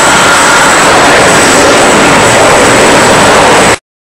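Jet engines of an Airbus A320-214 on the runway, its CFM56 turbofans making a loud, steady rushing noise with a thin high whine over it. It cuts off abruptly near the end.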